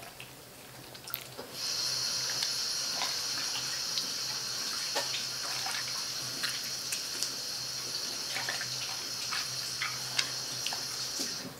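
Tap water running steadily into a sink, turned on about a second and a half in and shut off just before the end, with small sticky squelches of slime being kneaded by hand.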